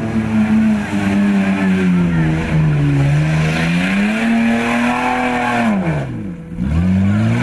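Nissan Patrol off-road trial vehicle's engine revving hard under load in mud, its pitch rising and falling. About six seconds in it drops sharply almost to idle, then climbs again.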